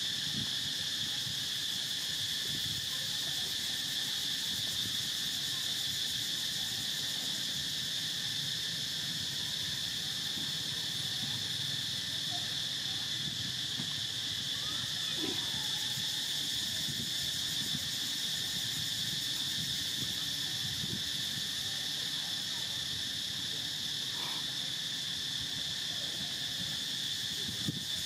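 Steady insect chorus, a continuous high buzzing at several pitches at once, unbroken throughout.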